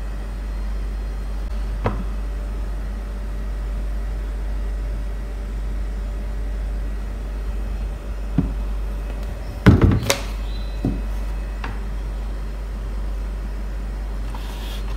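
Plastic knocks and clunks as a liquid detergent bottle and its measuring cap are handled at a front-loading washing machine's dispenser drawer, a few single knocks and a louder cluster about two-thirds of the way through, over a steady low hum.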